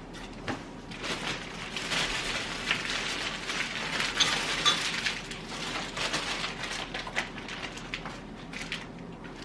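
Plastic packaging being handled, rustling and crinkling with many small crackles, busiest in the middle.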